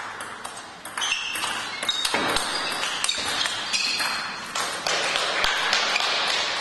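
Table tennis rally: the ball clicks sharply off the bats and the table in quick succession, a few hits a second.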